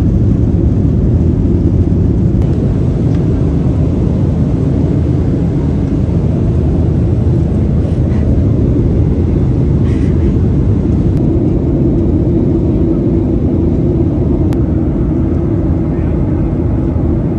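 Jet airliner's engines at climb power, heard inside the cabin as a loud, steady, low roar.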